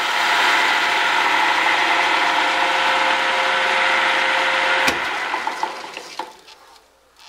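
Lathe running with the three-jaw chuck converted from a metal lathe for woodturning, a steady motor hum with a whine. About five seconds in it is switched off with a click and runs down, fading out over about two seconds.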